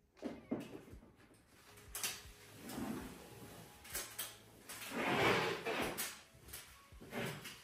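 Someone moving about with a flat mop in slippers on a laminate floor: scattered knocks and clicks, with a louder rustling swish about five seconds in.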